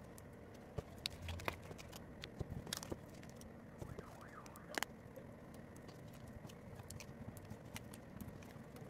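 Faint scattered taps and clicks of foam stickers being peeled and pressed onto a paper craft sheet by hand, over a steady low hiss. A faint tone rises and falls once about four seconds in.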